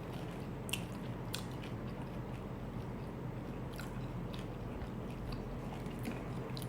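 A person chewing a crispy taco, with a few sharp crunches of the hard taco shell.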